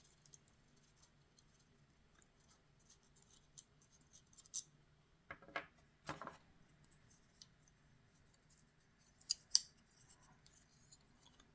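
Faint small metal clicks and clinks as the parts and screws of a folding knife being taken apart are handled, with a few sharper ticks about four and a half, six and nine and a half seconds in.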